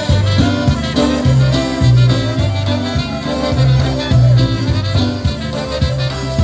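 Live polka band playing an instrumental passage of a Polish polka, with a steady beat of bass notes under the melody.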